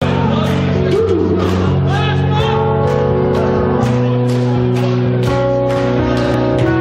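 Live rock band playing: electric guitar and bass holding sustained notes over a steady drum beat, in a large hall.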